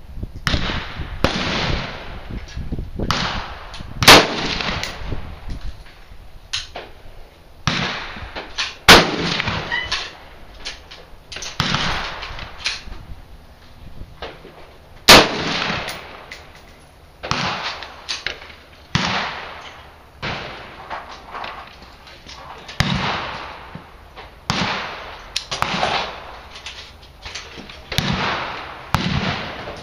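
Gunfire on a shooting range: many echoing rifle shots, roughly one every second or two, with three much louder, closer shots about four, nine and fifteen seconds in.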